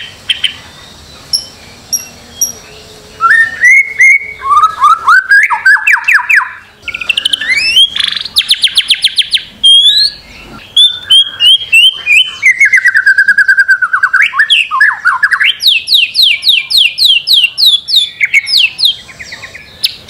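Songbird singing a long, varied song: fast runs of rapidly repeated notes, rising and falling slurred phrases and trills in quick succession, with a softer stretch of short high notes during the first few seconds.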